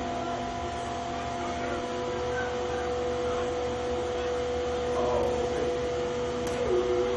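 Steady electrical hum made of several fixed tones over a constant background noise, with faint distant calls about five seconds in and again near the end.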